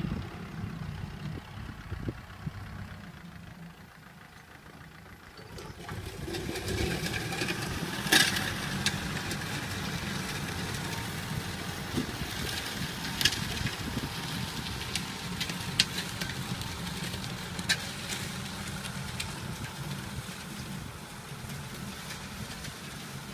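Farm tractor's diesel engine running steadily under load while pulling a disc harrow, getting louder about five and a half seconds in. A few sharp knocks stand out over the engine.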